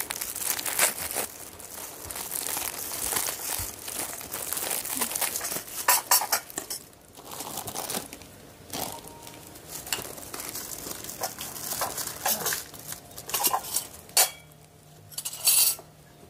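Plates and dishes clattering and food wrappers crinkling as a meal is laid out. The rustling is dense for the first several seconds, followed by scattered sharp clinks and knocks.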